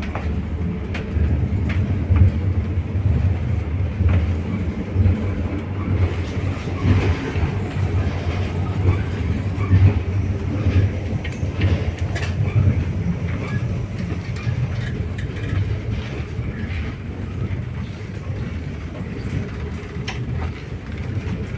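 Wheels of a double-decker passenger train car running on the rails, heard from inside a compartment: a steady low rumble with scattered knocks over the rail joints.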